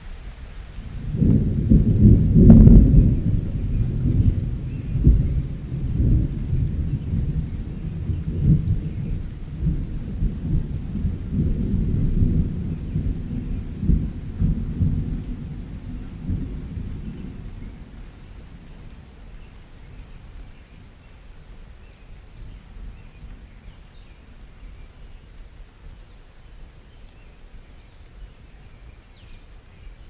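A long roll of thunder that swells about a second in, peaks soon after and rumbles on, fading away over about fifteen seconds, over a faint hiss of rain.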